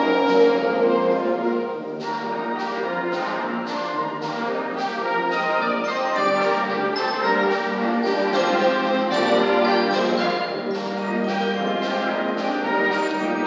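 High school concert band playing a slow piece: sustained chords from woodwinds and brass, with short high ringing notes sounding over them from about the middle on.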